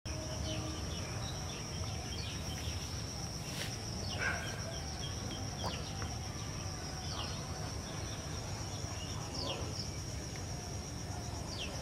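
Outdoor ambience: a steady high-pitched insect trill, with short falling bird chirps every second or so and a low rumble underneath.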